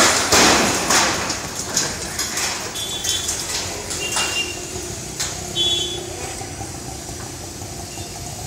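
Broken concrete and debris crashing down as a high-reach demolition excavator's crusher tears into a building's concrete frame, loudest in the first second. Scattered knocks and cracks of breaking concrete follow over the steady running of the excavator.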